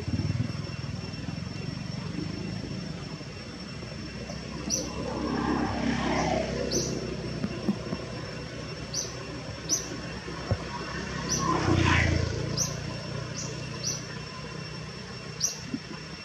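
Outdoor ambience: a steady low drone like a distant engine, with two swells that rise and fade, the louder about three-quarters of the way through. Short high chirps come over it, about a dozen of them, starting about a third of the way in.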